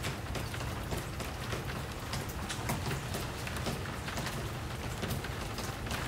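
Steady rain falling, with an irregular patter of single drops ticking.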